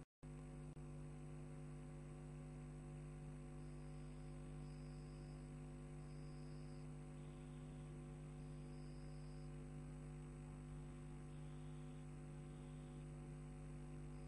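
Steady electrical mains hum with a stack of overtones, low in level, and now and then a faint short high tone. No other sound.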